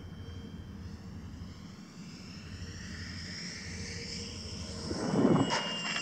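Electric RC model plane's G46 brushless motor and 13x8 propeller whining as the plane comes in on a low pass, rising in pitch and growing louder. A loud rumble of wind buffeting the microphone breaks in about five seconds in.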